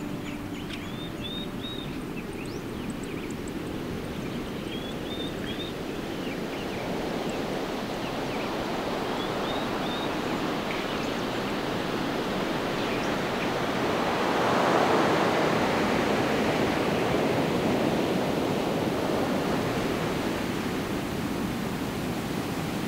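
Natural outdoor ambience: a steady rushing noise that swells louder about two-thirds of the way through, with a bird chirping in short runs during the first ten seconds.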